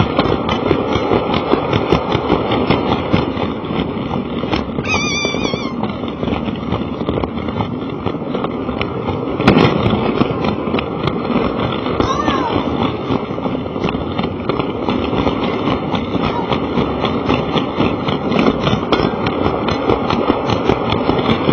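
Lego toy train's motor and gears running, with its wheels clattering steadily along the track, heard close up from a camera riding on the train. The noise stops suddenly at the very end.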